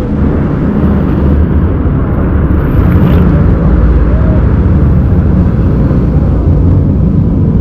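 An engine running steadily and loudly, mixed with a rushing noise.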